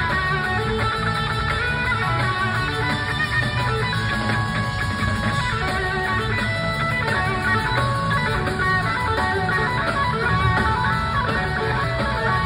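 A live blues-rock band playing, with electric guitar out front over bass and drums, heard from the audience through the venue's sound system.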